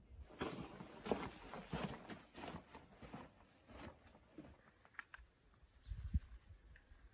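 Footsteps crunching on a gritty sand trail: a quick run of soft crunches for the first few seconds, then a few scattered ones.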